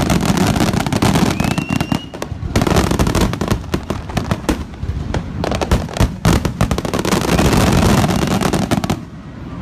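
Fireworks finale barrage: a dense, rapid run of booming shell bursts and crackle, with a short whistle about one and a half seconds in. The barrage drops away sharply near the end.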